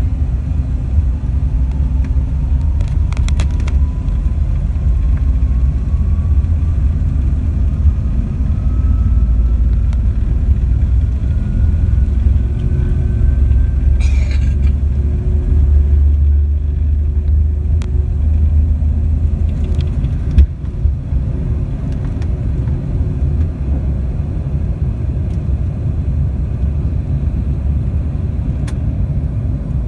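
Cabin noise of a Bombardier CRJ-700 on its takeoff roll, its rear-mounted GE CF34-8C turbofans at takeoff power giving a heavy, steady rumble. Over the first half a faint whine rises steadily in pitch as the jet gathers speed, and about two-thirds of the way through a single sharp thump stands out.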